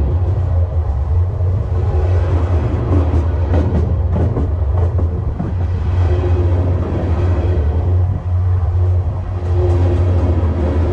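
Freight cars rolling past at rail level: a steady low rumble and hum from the rails and wheels, with faint scattered clicks from the wheels.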